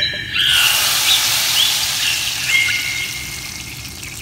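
Hot tarka of oil and fried garlic hitting a pot of chana dal and sizzling. The sizzle starts suddenly about half a second in and slowly dies down.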